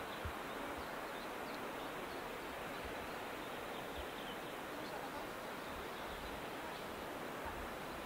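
Steady outdoor ambient noise, an even rushing hiss, with a few faint short high chirps scattered through it.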